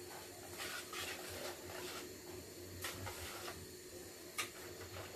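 Wire whisk beaten by hand through a runny egg-and-milk custard mixture in a mixing bowl: faint swishing and scraping strokes at an uneven pace, with two sharper scrapes against the bowl about three seconds and four and a half seconds in.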